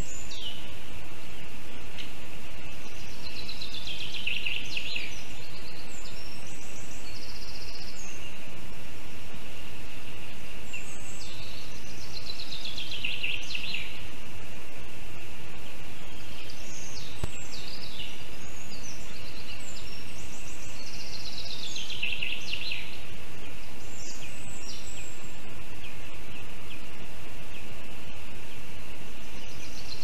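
Small forest songbirds singing: one bird repeats a falling trill phrase about every nine seconds, with other short high calls in between. A steady high-pitched hiss runs underneath.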